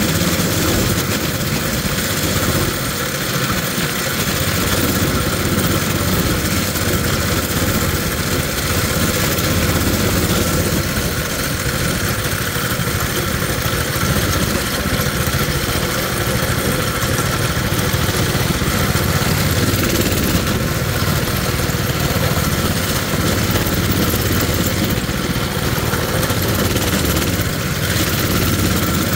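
Coleman mini bike's small single-cylinder four-stroke engine running steadily while riding, with a steady rushing noise over it.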